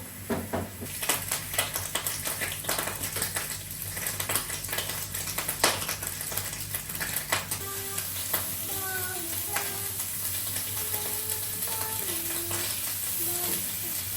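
Food sizzling in a frying pan, with a utensil clicking and scraping against the pan through the first half.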